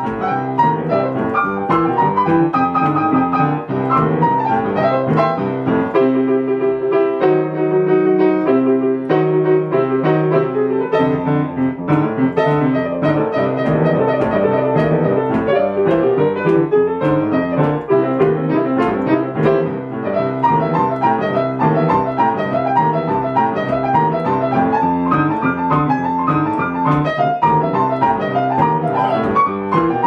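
Solo piano playing a boogie-woogie improvisation: a driving, rhythmic left-hand bass under right-hand figures. The low bass drops out for about five seconds, starting about six seconds in, then comes back.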